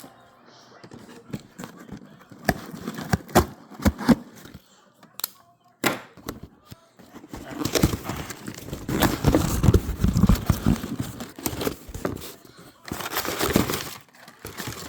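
Cardboard shipping box being handled and opened: a run of sharp taps and knocks, then long stretches of cardboard rustling and scraping in the second half.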